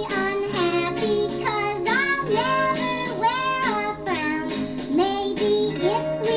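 Recorded pop song: a singing voice carrying long held and gliding notes over instrumental backing with a steady bass line.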